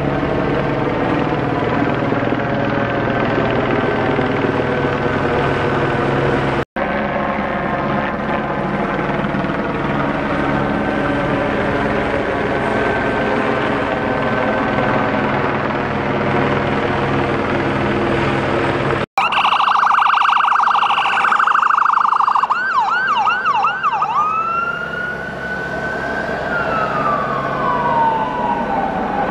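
A helicopter runs overhead as a steady drone. About two-thirds of the way in, an emergency vehicle siren starts loud with a steady tone, switches briefly to a fast yelp, then winds down in one long falling wail.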